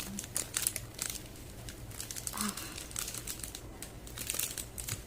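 Crinkly packaging being handled: an irregular string of sharp crackles and rustles.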